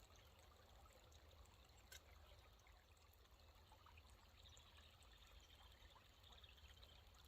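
Near silence with a faint, steady trickle of running water and a light tick about two seconds in.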